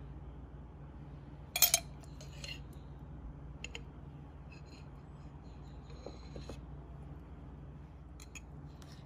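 A metal spoon clinking and scraping against a glass jar, with one sharp clink about one and a half seconds in and a few lighter clinks after, over a low steady hum.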